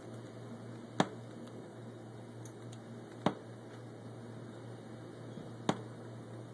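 Three sharp clicks, a little over two seconds apart, over a steady low hum and hiss.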